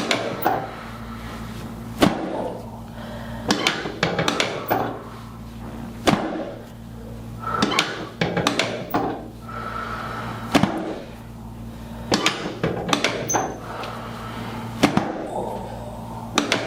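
Chiropractic low-back adjustments: a series of sharp knocks and cracks, about one every second or two and sometimes several close together, as thrusts are delivered on the lumbar spine and sacroiliac joints.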